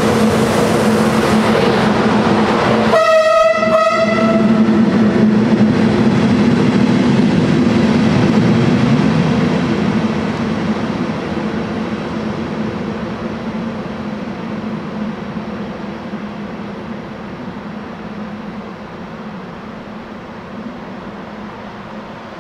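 A train passing, with a steady rumble of wheels on rail, sounding one horn blast about three seconds in. The noise then fades steadily through the second half as the train draws away.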